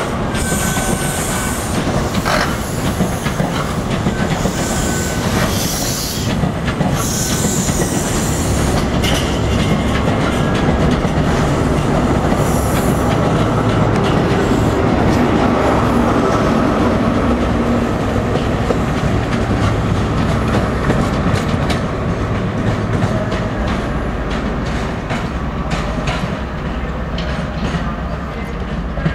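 CrossCountry High Speed Train with MTU-engined Class 43 power cars drawing away past close by: continuous running noise and wheels clicking over the rail joints and points. It is loudest around the middle and eases off near the end.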